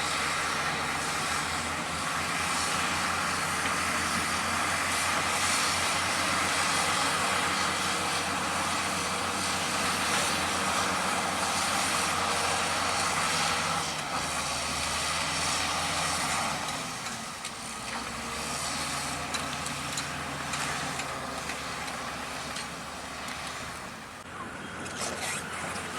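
Diesel engine of heavy construction equipment running steadily under work. Its note shifts about halfway through and eases slightly a little later, with a few sharp clicks near the end.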